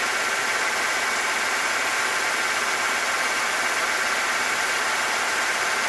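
1996 Ford F150's straight-six engine idling steadily with a misfire, which the mechanic traces to a faulty fuel injector.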